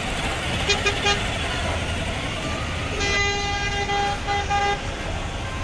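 Electronic horn of a battery-powered ride-on toy car beeping on one steady pitch: two short toots about a second in, then a longer toot that ends in a few quick beeps, over a steady hum of mall background noise.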